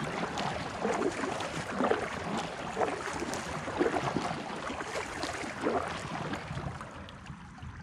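Kayak paddling: a double-bladed paddle dipping and pulling through calm water in repeated strokes, with splashing and dripping off the blades. The strokes die away about a second before the end as the kayak glides.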